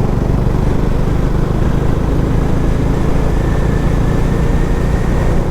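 Motorcycle engine running steadily while riding slowly, with a faint steady high whine joining about halfway through.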